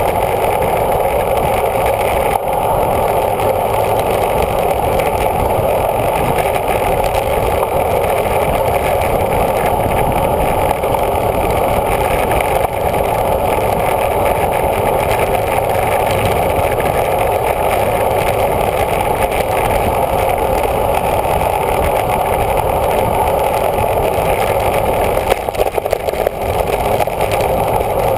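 Steady rush and rumble of wind buffeting a bicycle-mounted camera's microphone at about 32 mph on a downhill.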